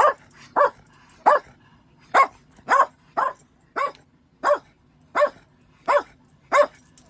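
A dog barking over and over in short single barks, evenly paced at about one every two-thirds of a second. It is morning wake-up barking aimed at getting its owner out of bed.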